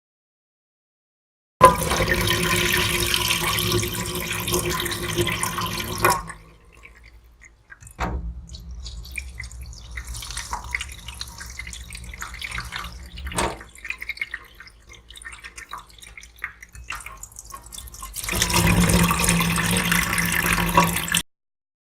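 Sink tap turned on, water running into the sink as a steady rush for about four seconds. Then a quieter spell of drips and small splashes. The tap runs full again for about three seconds near the end and cuts off abruptly as it is closed.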